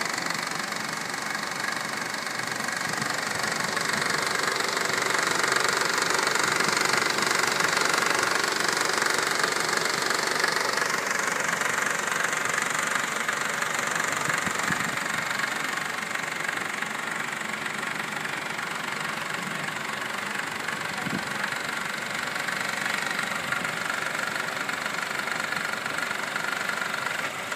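2012 Honda Civic EX engine running with a steady knocking rattle. The noise has outlasted a dealer's replacement of the belt tensioner and oil pump, and the dealer plans to replace the engine.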